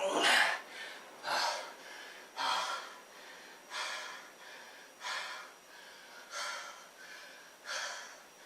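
A man breathing hard from push-up exertion: seven sharp, noisy breaths, one about every second and a quarter.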